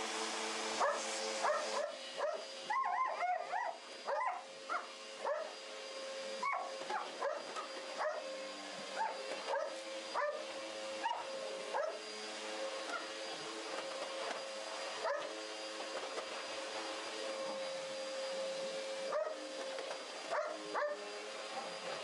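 A vacuum cleaner running with a steady hum, while dogs give short high yips and whines over it, most often in the first half.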